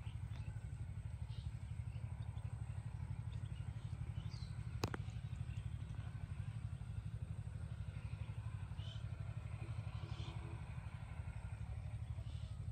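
A low, steady engine-like drone from an unseen motor, with a single sharp click about five seconds in and a few faint high chirps.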